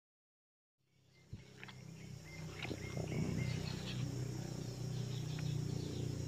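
About a second of dead silence, then a steady low hum of outdoor ambience with faint insect calls and small handling clicks.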